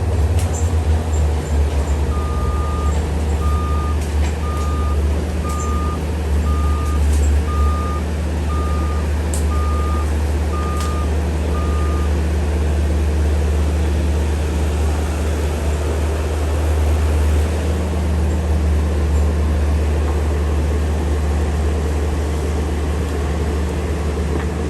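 Heavy diesel machinery running with a steady low rumble, its reversing alarm beeping about once a second for some ten seconds before stopping, with a few sharp cracks in the first half.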